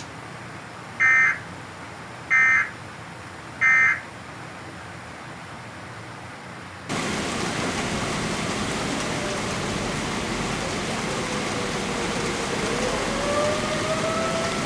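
Three short digital data bursts from a weather alert broadcast, about 1.3 s apart: the Emergency Alert System end-of-message code closing a tornado warning. About seven seconds in, steady heavy rain starts, and a distant tornado siren rises faintly near the end.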